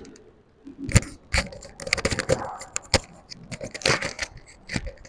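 Handling and shuffling noise: irregular clicks, knocks and rustling, with a few sharp knocks standing out about a second in, around the middle and just before the end.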